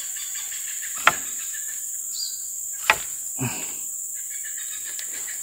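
Insects droning steadily in a high, unbroken buzz, with two sharp clicks, one about a second in and one about three seconds in, and a short rustle just after the second.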